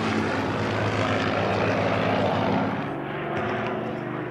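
Supermarine Spitfire flying overhead, its piston engine running steadily and growing a little fainter near the end.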